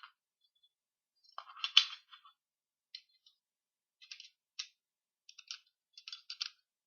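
Colt 25 airsoft pistol's slide and spring clicking and rattling as they are worked back into place by hand. A quick run of clicks about a second and a half in is the loudest, followed by scattered lighter clicks.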